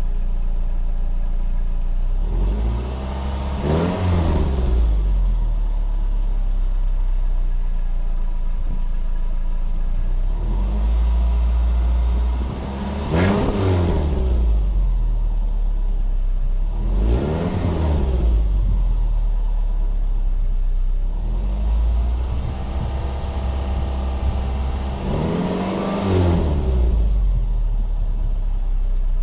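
A 2009 Subaru Outback's engine idling and being revved four times through a newly fitted stainless steel cat-back exhaust. Each rev rises and falls back to idle within a second or two; the last one climbs more slowly.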